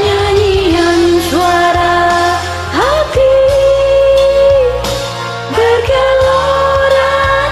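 Karaoke singing over a backing track: a voice holds long drawn-out notes without words, several of them sliding up into pitch.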